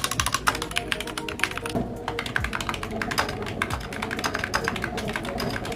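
Rapid typing on a mechanical keyboard fitted with ceramic keycaps: a fast, irregular run of keystroke clacks, several a second, over background music.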